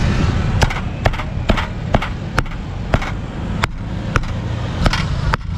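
Cleaver chopping grilled meat on a chopping board: sharp knocks at about two strokes a second, over a low steady rumble.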